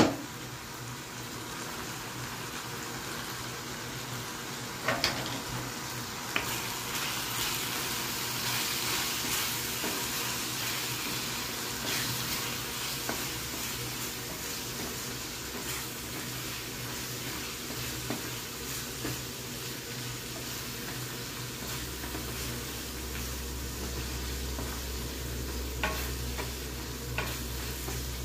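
Mutton and onion-tomato masala sizzling and frying in a nonstick pan while a wooden spatula stirs it, the bhuna stage of cooking. A few sharp knocks of the spatula against the pan stand out, a couple about five seconds in and a couple more near the end.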